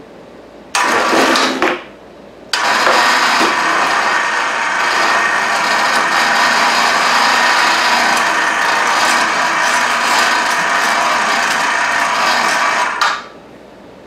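Electric cable hoist lifting a heavy rotary table. It runs briefly about a second in, then runs steadily for about ten seconds with a gear-and-motor drone, and stops near the end.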